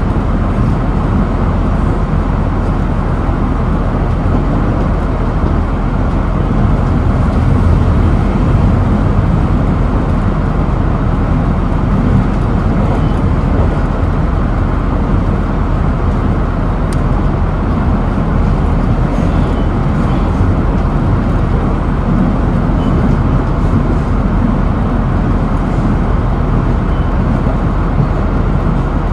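Steady running rumble of a JR East GV-E400 diesel-electric railcar heard from inside the passenger cabin, the engine, traction drive and wheels on the rails mixing into one even noise. It swells slightly a few seconds in.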